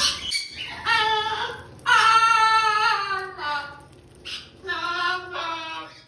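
A parrot talking: several short phrases of mimicked human words in a high, sing-song voice, with breaks between them.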